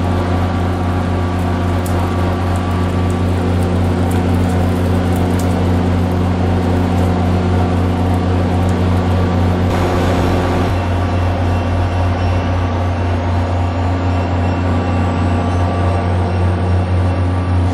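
Diesel locomotive of an MBTA commuter train idling at the platform, a steady low engine hum. A thin high whine slowly rises in pitch during the second half.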